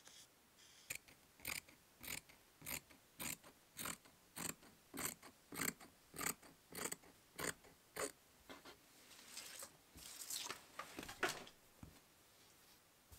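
Scissors cutting through T-shirt fabric in a steady run of snips, a little under two a second. The snips give way to the cut fabric rustling as it is lifted and handled near the end.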